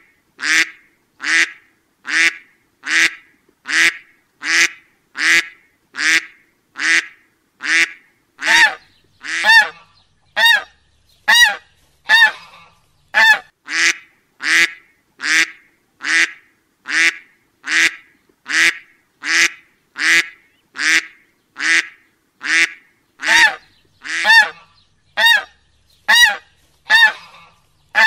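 Duck quacking over and over at an even pace, about four short, nasal quacks every three seconds.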